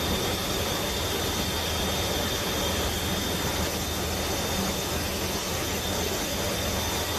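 Inside the cockpit of a C-130 transport on final approach: its turboprop engines and propellers give a steady drone with a thin high whine, over a constant rush of air noise.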